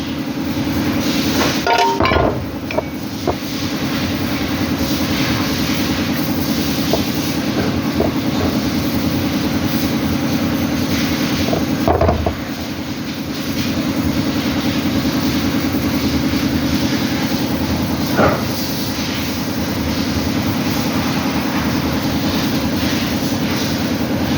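Toyota Estima engine running with a steady, rapid knocking clatter, the knock the title puts down to a faulty balancer gear. A few sharper clicks stand out, about two seconds in, near the middle and about three quarters of the way through.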